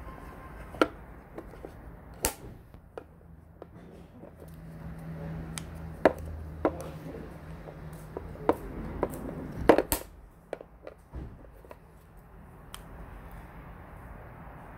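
Sharp plastic clicks and taps as wireless earbuds are lifted out of their plastic charging case and handled, about seven loud ones with the busiest stretch in the middle, over a low steady hum.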